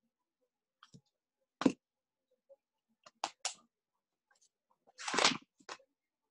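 A few scattered clicks and knocks, with a short rustling noise about five seconds in, picked up by open microphones on a video call.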